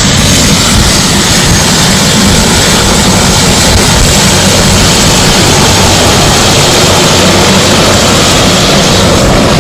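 Helicopter running close by: a loud, steady rush of rotor and turbine noise.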